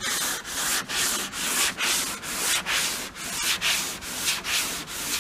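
Long DuraBlock sanding block with 3M sandpaper rasping back and forth over cured Evercoat polyester sprayable filler on a car body panel, in even strokes about twice a second.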